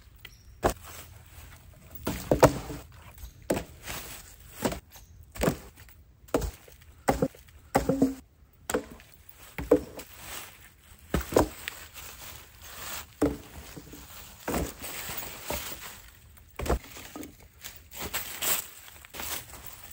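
Dead branches knocking and clattering against each other as they are pulled and thrown onto a pile, irregular hollow wooden knocks about once a second, with footsteps and rustling in dry leaf litter between them.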